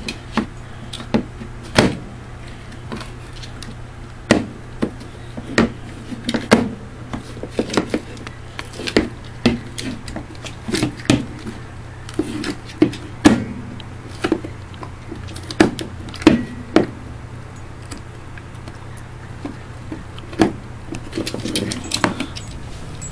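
A beagle gnawing a bone: irregular sharp cracks and clicks of teeth on bone, coming in clusters, with a quieter stretch about two-thirds through.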